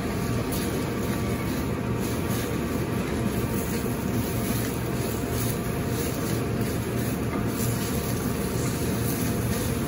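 Steady low rumble of a commercial kitchen's gas range burners and ventilation running, unchanging throughout.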